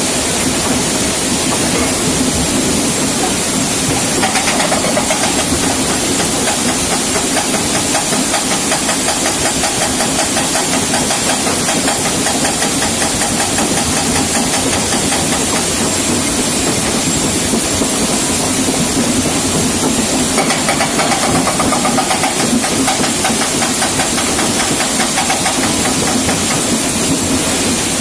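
Hydraulic breaker on a tracked excavator hammering rapidly and without pause into stone masonry, over the excavator's diesel engine running under load.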